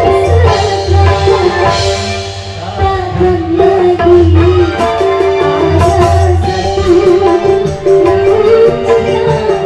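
Music with drums and a wavering lead melody over a steady bass.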